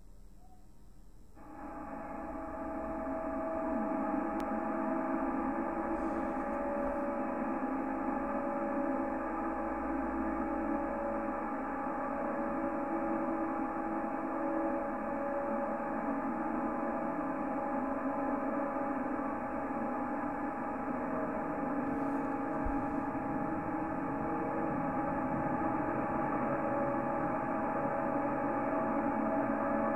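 CB radio receiver audio: steady static hiss with several steady whistling tones mixed in, heard through the radio's narrow audio passband. It fades in over the first few seconds.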